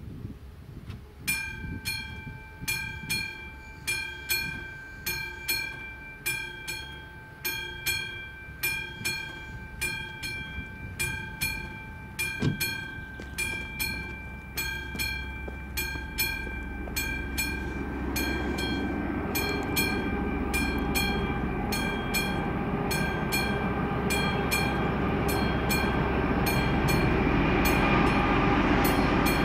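Level-crossing warning bell ringing with a steady run of struck, decaying strokes. Over the second half an approaching freight train's rumble grows steadily louder and comes to cover the bell.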